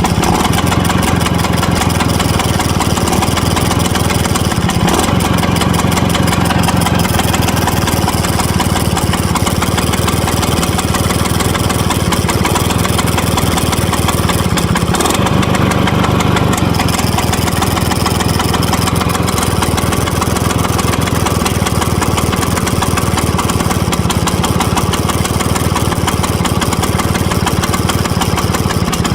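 1963 Vespa VBB scooter's 150cc two-stroke single-cylinder engine idling steadily with fast, even firing pulses, its speed shifting slightly a couple of times. The owner reports a rattle at idle on this engine, which also won't restart once warm.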